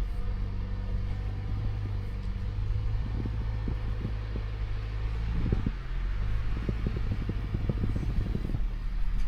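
Car engine idling steadily. From about three seconds in, irregular short knocks are heard over it.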